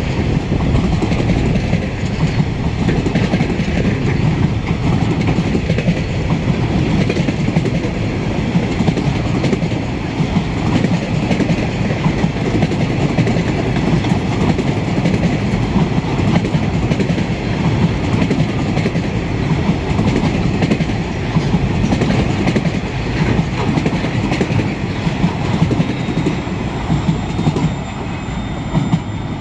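Freight train wagons, container flats and then empty log wagons, rolling past close by. Their wheels make a steady rumble and clatter on the rails, which drops away as the last wagon passes near the end.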